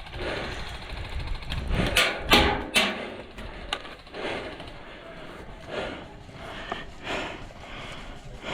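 A run of brief rustles, knocks and clicks over a steady low rumble, loudest about two to three seconds in.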